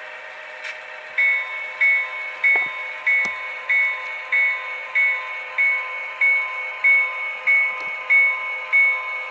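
Sound-decoder locomotive bell of an HO-scale Proto 2000 GP38-2, played through the model's small speaker: starting about a second in, it rings steadily about one and a half strikes a second over the decoder's diesel engine sound.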